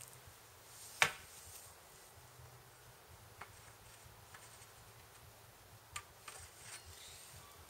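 A few small clicks and taps over a faint steady background hum, with one sharp click about a second in and lighter ticks later.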